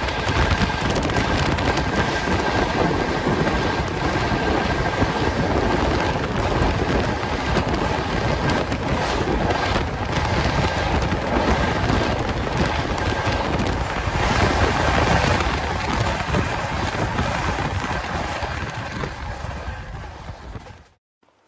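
Wind rushing past the open door of a moving Rajdhani Express coach, mixed with the steady rumble of the train running on the track. The noise fades away near the end.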